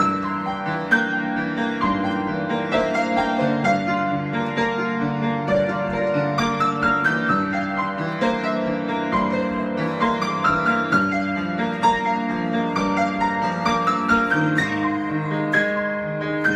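Solo piano improvisation: a continuous flow of notes, with held low notes under quicker, higher melodic lines.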